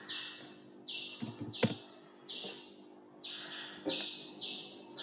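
A high, buzzy chirp repeats steadily in the background, about one and a half times a second, with a single sharp click about a second and a half in.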